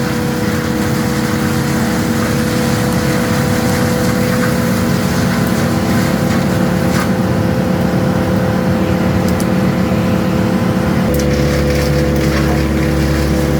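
Wood chipper running steadily under power, a loud constant machine drone with a steady whine. About eleven seconds in the sound shifts and a deeper hum comes in.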